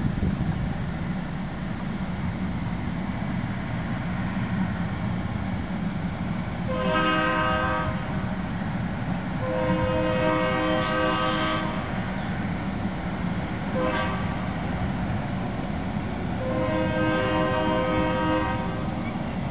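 Train's multi-tone air horn sounding two long blasts, one short and one long, the pattern of the grade-crossing signal, over a steady low rumble as the train backs up.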